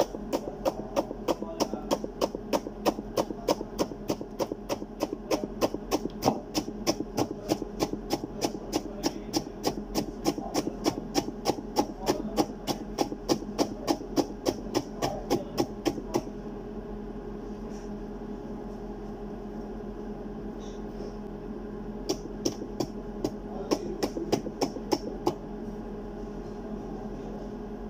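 Kitchen knife chopping through stacked thin cucumber sheets onto a cutting board, an even run of about four knocks a second. The knocks stop about 16 seconds in and come back in a shorter run near the end, over a steady low hum.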